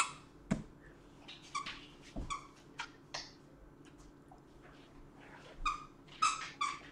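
Plush squeaky dog toy squeaking as a dog chews it: short, high squeaks, a few scattered ones and then a quick run of several near the end. A soft knock comes about half a second in.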